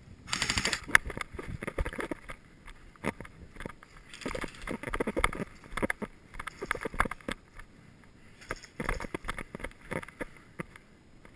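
Footsteps on dry grass and dirt with gear rustling and rattling, in uneven bursts, as the player moves with the camera.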